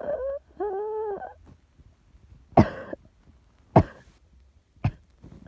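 A person with asthma gives two drawn-out, wheezy pitched breaths, then coughs three times, about a second apart, the last one softer.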